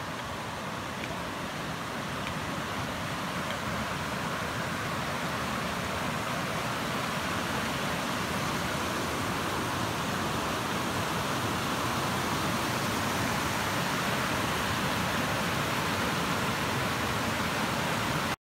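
River rapids rushing over granite ledges: a steady roar of white water that grows a little louder as it goes and cuts off suddenly at the end.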